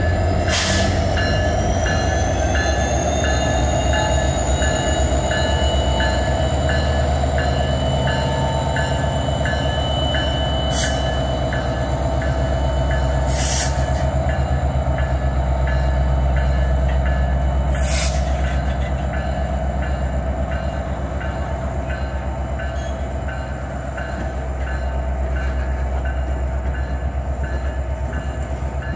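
Norfolk Southern diesel-electric freight locomotives pulling away from a start, their engines running under load with a steady deep rumble. A high whine rises in pitch over the first few seconds and then holds. A few sharp clicks sound over it.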